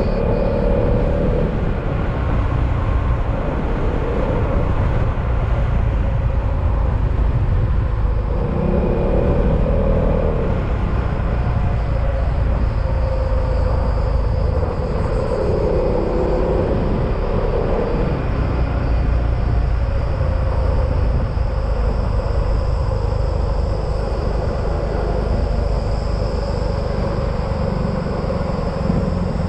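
Yamaha XMAX maxi-scooter under way, its engine running under steady wind and road rumble. The engine note swells and eases a few times.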